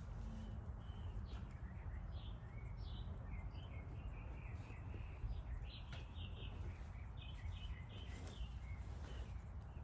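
Small birds chirping in quick short calls, over a steady low rumble of outdoor background noise.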